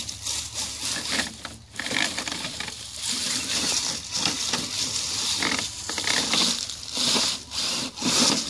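Axial SCX10 RC crawler truck driving through dry leaves and twigs, which crackle and snap under its tires, with the tires rubbing against the body shell.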